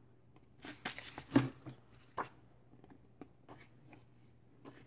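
Pages of a picture book being turned by hand: a few quick paper rustles and flicks, the loudest about a second and a half in, then light scattered taps.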